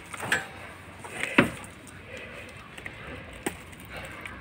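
Hand pruning shears snipping through rose stems: three sharp snaps, the loudest about a second and a half in. The cutter is one its user says is not cutting well.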